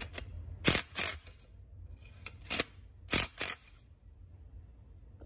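Sharp metallic clicks, mostly in close pairs, from a Torx driver working the muffler screws on a Stihl MS 362 chainsaw as they are evenly tightened. The clicking stops about three and a half seconds in.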